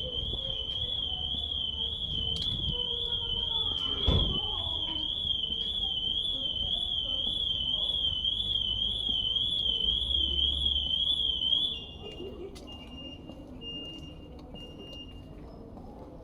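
Electronic warning alarm sounding a continuous warbling tone that stops abruptly after about twelve seconds, then gives way to a few short, lower, steady beeps. A single loud thump about four seconds in.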